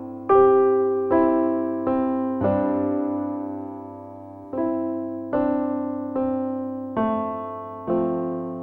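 Background music: a slow keyboard tune in soft electric-piano tones. Each note or chord rings out and fades, roughly one a second, with a longer held note near the middle.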